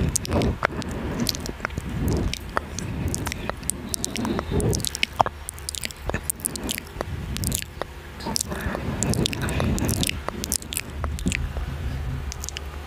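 Close-miked ASMR mouth sounds: irregular wet clicks and squishy smacks of lips and tongue, one after another.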